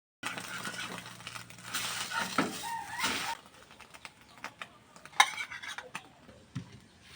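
Kitchen utensils and dishes clinking and knocking. A steady hiss runs for about the first three seconds, then scattered sharp clicks follow, the loudest a little after five seconds in.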